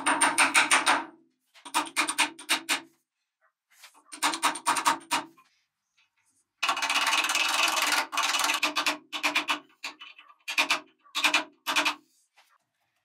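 Rust being scrubbed by hand from a lathe part: quick back-and-forth strokes, several a second, in five bursts with short pauses, the longest in the second half.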